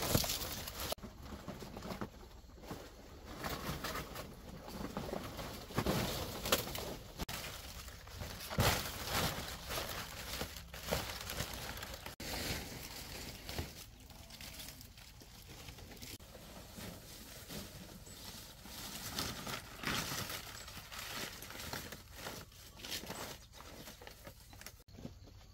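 Fan palm leaves rustling and crackling in irregular bursts as they are handled and tied onto a bamboo rail.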